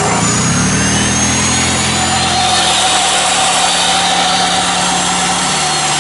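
A corded chop saw switches on and spins up alongside an already running angle grinder, while the Honda EU2000i inverter generator's engine, fed by propane, revs up within about a second to carry both. The generator is being asked for more than its rated output and keeps running without tripping.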